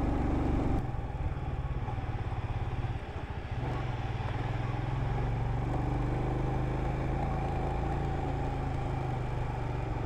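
Royal Enfield Himalayan's single-cylinder engine running steadily while riding. Its note drops about a second in and dips briefly around three seconds in, as if the throttle is eased off, then carries on steady.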